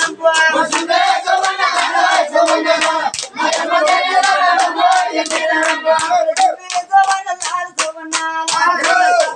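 A group of men singing a Golla chaduvu folk recital together, clapping their hands in a steady rhythm of roughly four claps a second.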